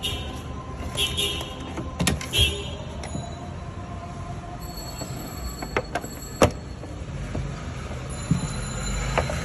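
Hard plastic parts of a foldable push-up board being handled: a series of sharp clicks and knocks as the push-up handle and board panels are moved and set against each other, the loudest about six seconds in. A few short plastic squeaks come in the first two seconds.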